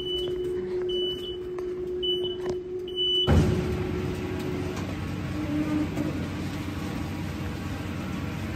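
Airport special-baggage conveyor in operation: a warning beeper gives four short high beeps about a second apart over a steady hum, then a little over three seconds in the belt machinery starts with a sudden loud clatter and runs on with a steady rumble.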